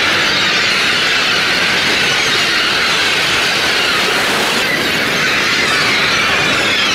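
A huge flock of gulls calling all at once: a loud, dense, unbroken clamour of overlapping high cries.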